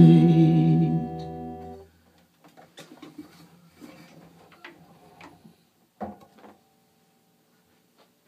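Closing chord on an acoustic guitar ringing, then damped to a stop just under two seconds in. Faint scattered handling and shuffling noises follow, with one sharper knock about six seconds in.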